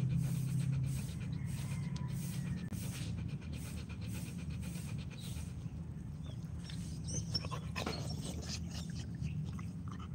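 A Rottweiler panting rhythmically with its tongue out, about two to three pants a second, stopping about five seconds in. A short scuffling noise follows near eight seconds in.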